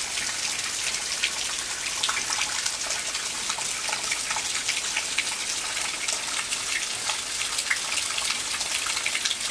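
Steady heavy rain falling, an even hiss dotted with many small drop splashes close by.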